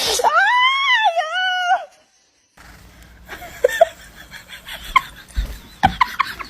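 One long animal call that rises and then falls in pitch. After a short silence come scattered short chirps and a few knocks.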